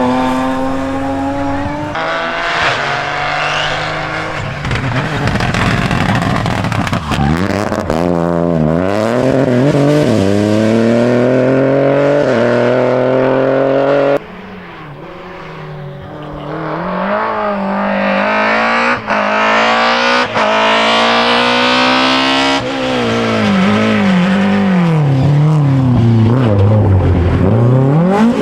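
Rally cars at full throttle, their engines revving up and dropping sharply with each gear change and lift. Several cars are heard one after another; one comes in quieter about halfway through and grows louder as it approaches. Near the end an engine's pitch falls low under braking, then climbs again as it accelerates away.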